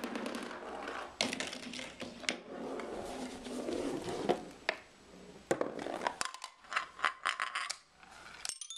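Marbles rolling and clattering through a homemade marble run of cardboard, wooden sticks and plastic parts, with many sharp clicks as they drop and bounce. Near the end a marble runs onto a toy xylophone and rings a quick series of notes.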